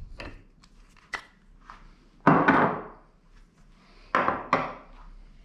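Hand tools and bike parts being handled and set down on a work table: a few light clicks, then a loud knock with a short clatter a little past two seconds in, and two more knocks about four seconds in.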